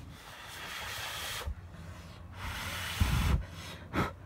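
Puffs of breath blown close to the microphone, with a rushing hiss and a low rumble: a long puff, a second one about two and a half seconds in, and a short one near the end.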